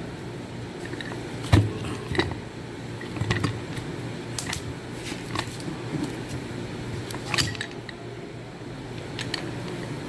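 Metal parts of a car AC compressor clinking and knocking now and then as they are handled and pulled apart by hand, over a steady low hum.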